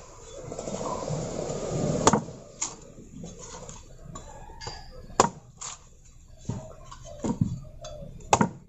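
A young coconut being chopped open: three sharp chops about three seconds apart, with lighter knocks and scrapes between them.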